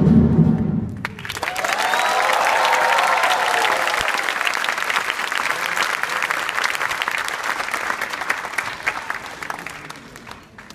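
Dance music cuts off about a second in, and an audience breaks into applause, many hands clapping; the clapping fades away near the end.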